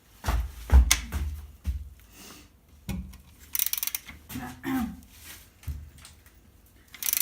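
Irregular knocks, clunks and short rustles of objects being handled, with a brief hissing rustle about halfway through.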